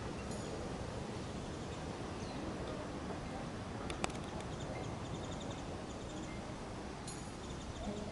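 Outdoor ambience: a steady low background rumble, with faint, high, rapidly repeated chirping trills from about five seconds in and again near the end, and one sharp click about four seconds in.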